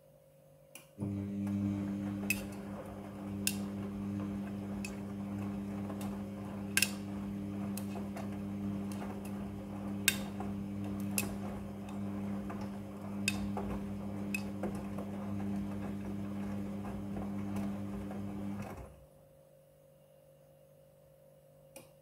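Midea front-loading washing machine tumbling a wet load during the wash: the drum motor starts with a steady hum about a second in, with laundry and water churning and scattered sharp clicks against the drum, then cuts off abruptly near the end as the drum stops for its pause.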